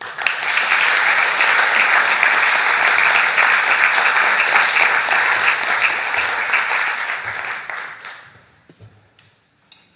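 Audience applauding: a burst of clapping that starts suddenly, holds steady, and dies away after about eight seconds.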